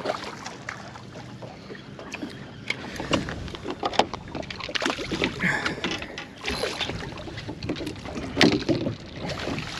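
Irregular knocks, clicks and rustling on a fiberglass boat deck as a striped bass on light tackle is swung aboard and handled, with the loudest knocks about four seconds in and again near the end.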